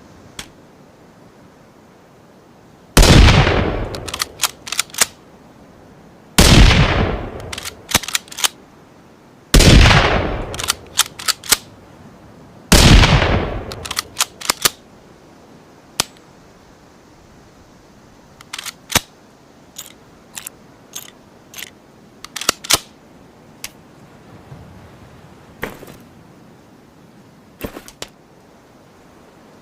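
Ruger American Rimfire bolt-action rifle sound effect: four loud shots about three seconds apart, each with a ringing tail that dies away over about a second and followed by a few quick sharp clicks. In the second half comes a run of lighter, scattered mechanical clicks.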